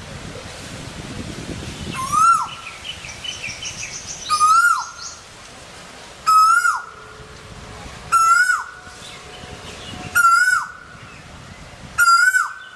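A bird giving the same short call over and over, about every two seconds, six times; each note rises and then falls quickly. Softer chirping from other birds runs underneath for a moment near the middle.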